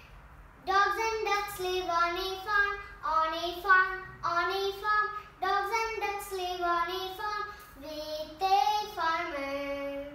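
A young girl singing a nursery rhyme about farm animals, unaccompanied, in short melodic phrases with held notes at their ends.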